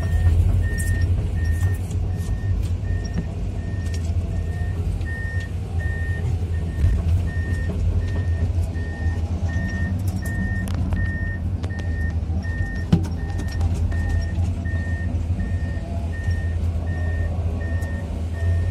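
Komatsu PC210-10 excavator's six-cylinder diesel engine running steadily while the machine travels on its tracks. The travel alarm beeps evenly, nearly twice a second, over scattered clanks and knocks.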